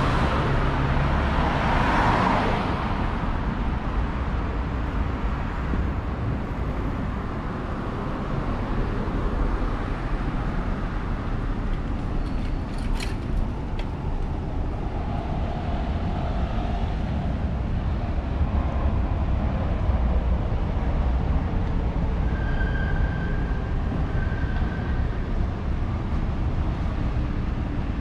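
Street ambience of road traffic: a steady wash of passing cars, with a vehicle going by close about two seconds in.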